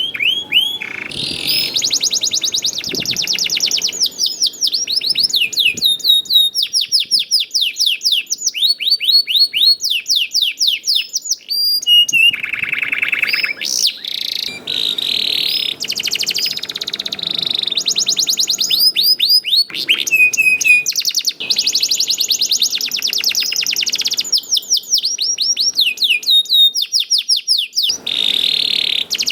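Domestic canary singing a long, continuous song of rapid trills: runs of quickly repeated high sweeping notes, several per second. About twelve seconds in there is a lower, buzzier rolling trill before the high trills return.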